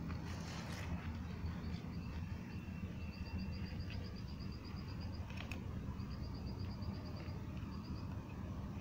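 Outdoor ambience with a steady low rumble underneath and a high, rapid trilling call that comes in several bouts of a second or two, plus a single sharp click about five and a half seconds in.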